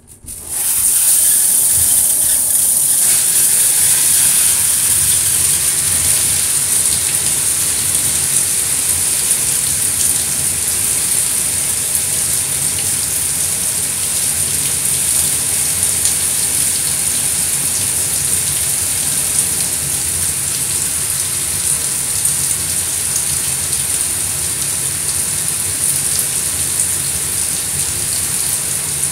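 Water from a handheld shower head spraying onto a crumpled black plastic bag: a steady, hissy spray pattering on the plastic, coming on about half a second in.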